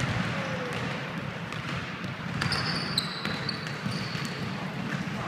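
Basketball game in a large gym hall: the ball bouncing and sneakers squeaking on the court, with a cluster of high squeaks about two and a half to three and a half seconds in.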